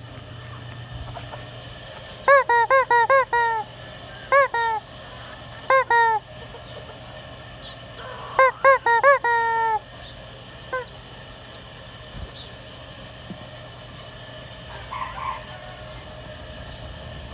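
Squeaky rubber chicken toy squeezed in bursts of quick honking squawks, each a short rise-and-fall in pitch. There are several rapid bursts in the first ten seconds, then a last single squawk, and after that only quiet background.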